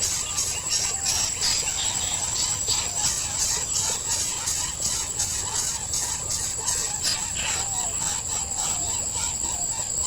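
Steady high-pitched insect chorus with a fast, even pulsing, and faint wavering chirps lower down.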